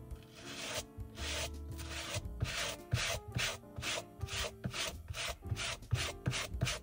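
A stiff suede brush scrubbing back and forth over the nap of a suede loafer in short, rhythmic strokes that quicken to about three a second, grooming and smoothing the nap. Soft background music underneath.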